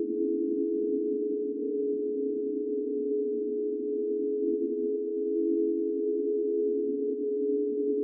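Ghost sound effect: a steady drone of several close, low tones layered together, holding on without a break.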